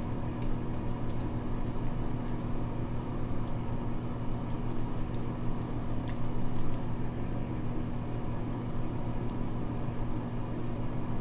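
Hands rubbing and patting a foaming cleanser over a wet face: soft, irregular wet rubbing with faint clicks, over a steady low hum.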